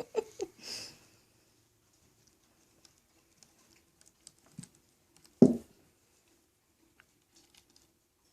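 Pets scrambling about on a kitty condo: scattered light taps and scratches, with one louder thump about five seconds in.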